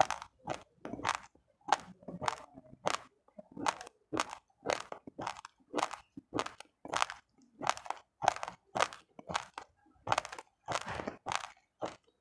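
Raw uncooked rice grains crunched between the teeth, close to the microphone: a steady rhythm of sharp crunches at about two a second.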